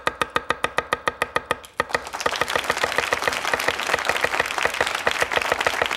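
A Chinese cleaver chopping rapidly and evenly through a cucumber onto a wooden cutting board, about nine ringing strokes a second. About two seconds in, a studio audience starts applauding and keeps on under the chopping.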